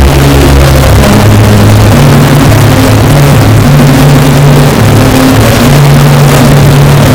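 Heavily bass-boosted, clipping music: a very loud, distorted bass line stepping between a few low notes.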